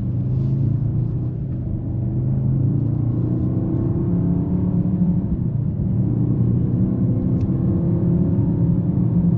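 Mercedes-AMG GLE 63 S twin-turbo V8 running under way with a low, steady rumble, its note climbing gradually twice as the SUV gathers speed.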